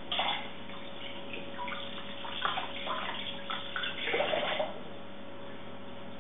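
Cherry tomatoes being washed under a running kitchen tap: water splashing in irregular bursts for about four and a half seconds, then stopping.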